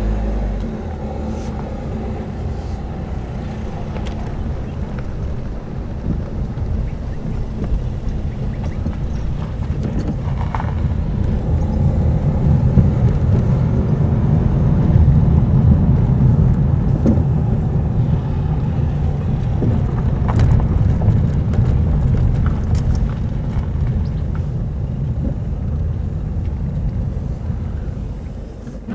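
Car engine and tyre rumble heard from inside the car as it drives along a narrow country lane. It grows louder as the car picks up speed and eases off near the end.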